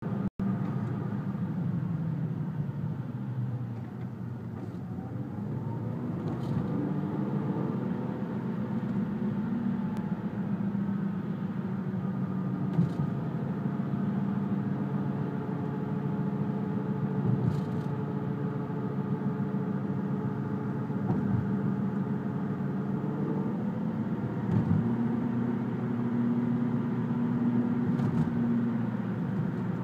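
Z28NET/Z28NEL 2.8-litre turbocharged V6 engine running steadily, its pitch drifting slowly up and down. It makes a strange drone in the 3000 rpm range.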